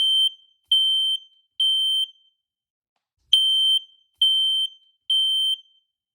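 Fire alarm beeping a high-pitched tone in the temporal-three evacuation pattern: three half-second beeps, a pause of about a second, then three more. This pattern is the standard signal to evacuate for fire.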